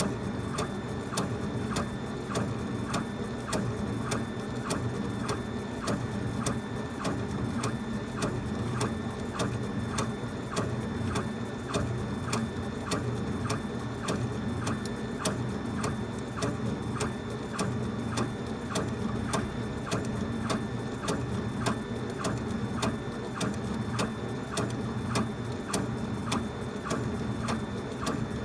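Laser engraver raster-engraving wood: a steady machine hum, with the head driven back and forth by its motors and a sharp tick at each pass about twice a second.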